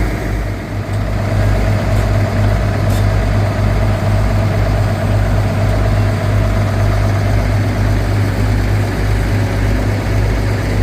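Heavy machine's diesel engine running steadily at low revs, a deep continuous throb.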